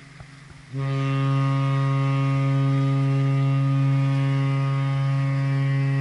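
Cruise ship's horn sounding one long, loud, steady blast that starts just under a second in, following a fainter horn tone, as part of a horn exchange between ships.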